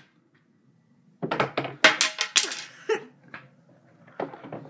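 Pool balls clacking against each other in a quick run of sharp clicks, starting about a second in, with a few more clicks near the end.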